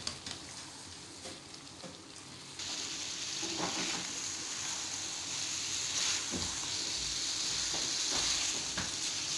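Chicken and fried bitter gourd (karela) with onions and green chillies sizzling in a frying pan as they are stirred. The sizzle grows suddenly louder about two and a half seconds in, with a few stirring strokes through the mix.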